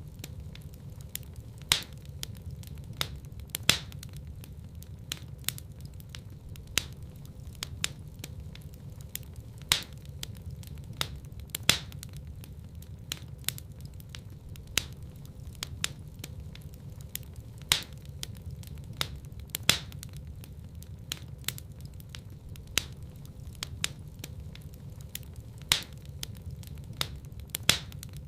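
Wood fire burning in a fireplace: a steady low rumble of the flames with irregular crackles and sharp pops of burning wood, a few louder pops every couple of seconds.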